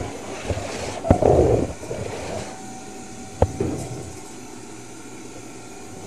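Vacuum cleaner running with a steady noise, with knocks and bumps from the cleaning. The loudest is a rumbling stretch a little over a second in, and there is a sharp knock about three and a half seconds in.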